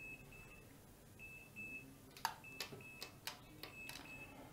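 Faint electronic beeper giving pairs of short high beeps, a pair about every 1.2 seconds. From about two seconds in, several sharp clicks sound, which fit the buttons of a plug-in energy meter being pressed.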